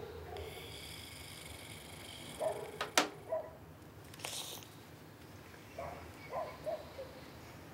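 Soft wordless vocal sounds, brief murmurs and whimper-like noises from a person. There is a sharp click about three seconds in and a short breathy hiss about a second later.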